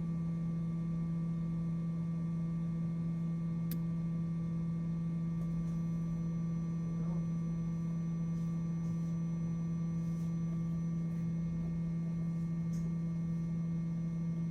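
Steady electrical hum: one low, unchanging tone with fainter higher overtones, and a couple of faint clicks.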